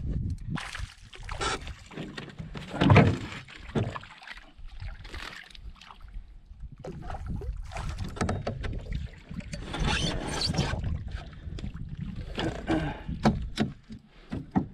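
Handling noise in a canoe while a small bass is reeled in and landed: irregular knocks, scrapes and rustles over a steady low rumble, loudest about three seconds in.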